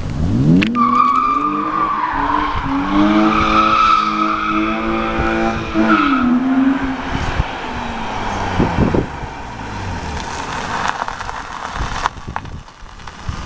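BMW E36 323i straight-six with an ITG intake filter and Supersport exhaust revving up hard under load while the tyres squeal in a drift. The engine note climbs at the start, holds high for a few seconds, then drops about six seconds in and carries on more quietly.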